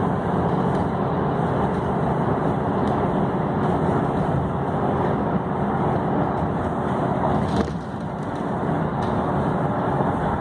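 Steady road and engine noise of a car driving at highway speed, heard from inside the moving car, with one short click about seven and a half seconds in.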